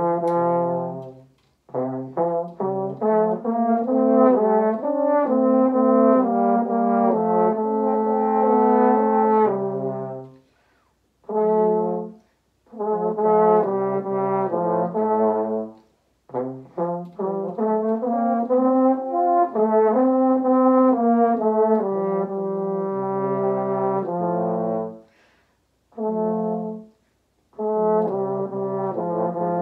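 Two French horns playing a duet in phrases, with brief pauses between them.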